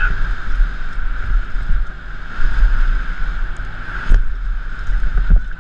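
Downhill mountain bike ridden fast over rough dirt and rocks, heard from a helmet-mounted camera: heavy wind buffeting on the microphone and the bike rattling over the trail, under a steady high buzz. A sharp knock about four seconds in, as the bike hits a rock or bump.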